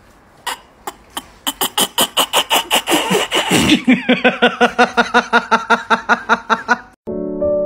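A dog barking rapidly and repeatedly, about five barks a second, starting about half a second in and speeding up, then stopping abruptly; piano music starts near the end.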